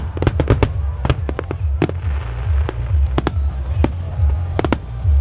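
Starmine fireworks barrage: shell bursts and bangs going off in quick succession, a few every second, over a continuous deep rumble.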